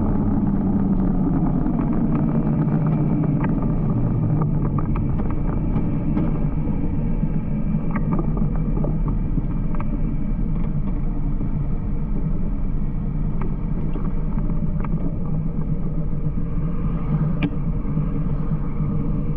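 Motorcycle engine running while riding at road speed, over steady wind and road noise. The engine note drops over the first few seconds as the throttle eases, then holds steady.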